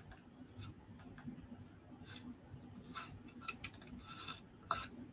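Faint, irregular small clicks and light ticks, about a dozen scattered through, with one louder click near the end, over a low steady hum.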